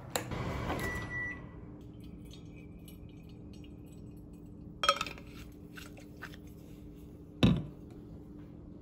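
Kitchen handling sounds of a stainless steel water bottle and an electric kettle: a soft rush of noise in the first two seconds with a brief high beep, a faint steady hum, then two sharp clunks, about five and seven and a half seconds in.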